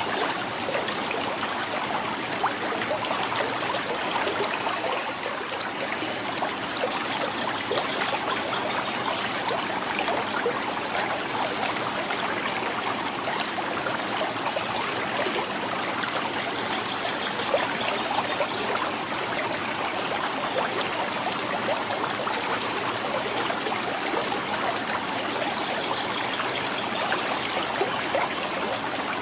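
Shallow river water flowing and gurgling steadily, with many small splashes and trickles.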